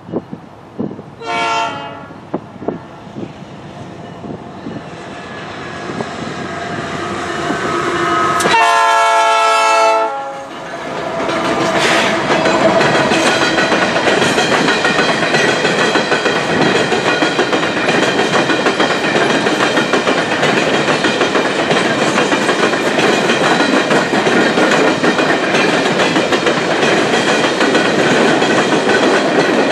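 Horn of a CP AC4400CW diesel locomotive leading an empty coal train: a short blast about a second in, then a longer, louder blast about 9 seconds in as the locomotives close in. It is followed by the steady rumble and clickety-clack of empty coal cars rolling past.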